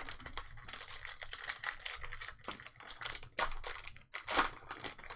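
Trading-card pack wrappers being torn open and crinkled, a dense run of crackling with a couple of louder rips in the second half.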